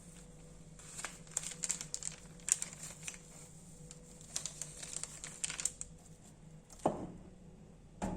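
Crinkly material being handled: a run of short crackles and ticks over several seconds, then a single dull knock near the end.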